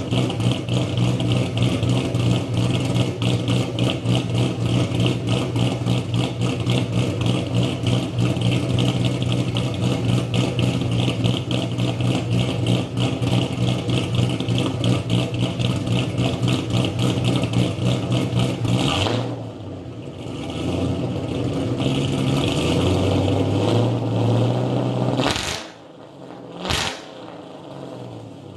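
Cammed 4.6-litre two-valve V8 of a New Edge Ford Mustang with Comp Cams Stage 3 camshafts idling with a loud, evenly pulsing beat. About two-thirds through it quietens and its pitch rises briefly, then drops away, with two short sharp bursts near the end.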